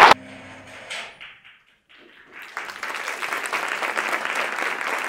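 Audience applause cuts off abruptly at the start, leaving a second or two of near quiet with a faint hum, then softer applause starts up again and carries on.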